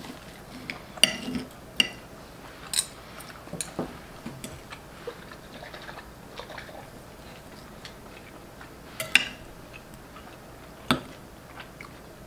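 Steak knives and forks clinking and scraping on ceramic plates as thick ribeye steaks are cut, with sharp clinks at irregular times; the loudest are about a second in and near the nine-second mark.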